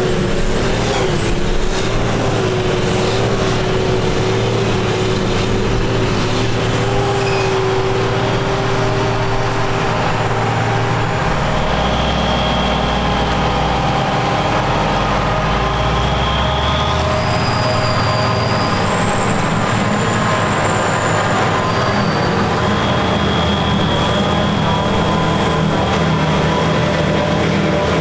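John Deere 6950 self-propelled forage harvester and a New Holland tractor running together while chopping grass for silage: a loud, steady machinery drone, with a held whine through the first half.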